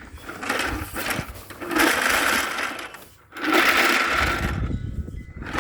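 Plastic wheels of a suction pool cleaner rolling or being spun, a rattling mechanical whir in two stretches with a short break between them.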